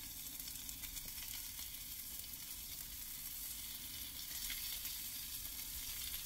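Pejerrey fillets frying in olive oil and garlic in a small pan: a steady, high sizzle.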